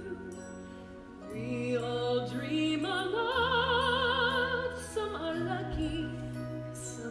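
Orchestral stage-musical accompaniment: slow held chords over a deep bass that shifts about every two seconds, swelling after a quieter moment about a second in, with a held melody line with wide vibrato in the middle.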